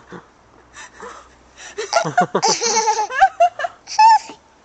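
A young child laughing in a rapid run of short, high-pitched bursts, followed by a brief high squeal about four seconds in.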